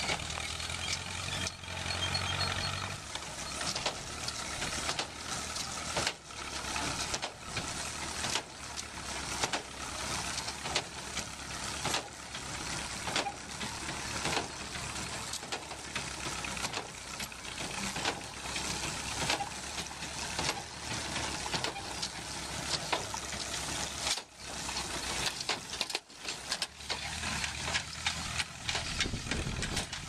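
Tractor engine running under load as a pull-type small square baler works, its plunger and drive mechanism giving a steady run of knocks and clatter.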